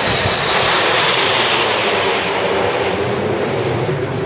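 Jet engines of a nine-aircraft display formation overhead, a loud steady rush that is strongest about a second and a half in and then eases off.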